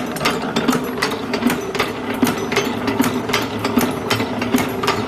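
Hydraulic CNC wire hook-forming machine running: a steady hum with quick metallic clacks repeating about two to three times a second as it bends and cuts the wire.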